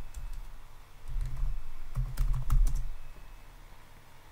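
Computer keyboard typing: a few separate key clicks, then a quick cluster of keystrokes a little past two seconds in.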